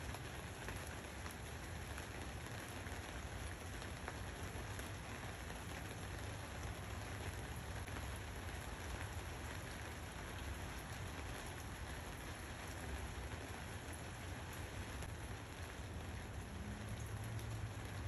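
Steady rain falling, an even hiss with faint scattered drip ticks over a low rumble.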